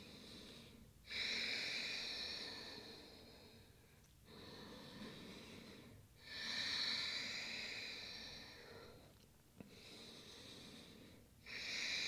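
A woman breathing slowly and deeply, each breath about three seconds long. Loud breaths alternate with quieter ones, one full breath cycle about every five to six seconds.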